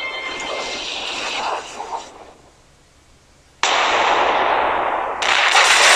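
Battle sound effects. A noisy rush fades out about two seconds in, leaving a moment of near silence, then two sudden loud blasts like explosions or cannon fire come about a second and a half apart.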